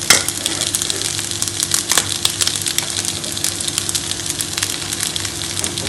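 Rice, vegetables and mushrooms sizzling in a frying pan: a steady crackling hiss, with a couple of sharper clicks near the start and about two seconds in.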